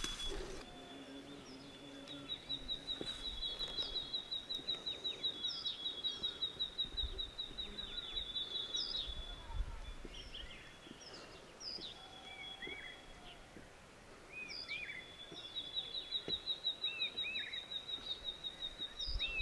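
Jungle ambience: a high, rapidly pulsing trill runs for several seconds twice, with short chirping bird calls between the two stretches.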